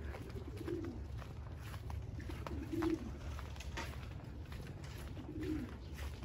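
Domestic pigeons cooing: three short, low coos spaced roughly two and a half seconds apart, over a steady low background rumble.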